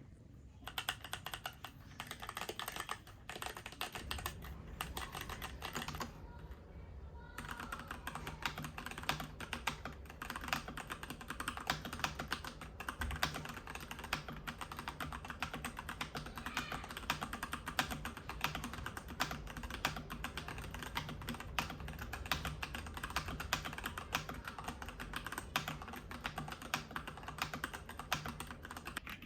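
Mechanical keyboard fitted with new Akko switches, typed on quickly with dense, irregular key clacks. There is a short pause a few seconds in, then steady typing resumes.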